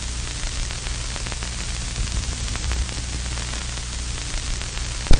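Old-film crackle effect: a steady crackling hiss over a low hum, with faint scattered clicks. A couple of louder pops come just before the end.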